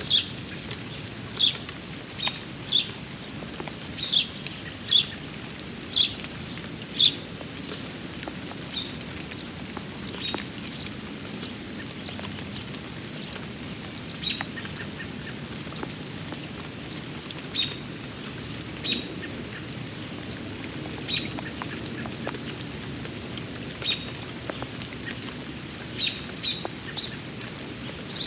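Steady rain falling, with a bird's short, sharp chirps repeated about once a second for the first several seconds, then more sparsely.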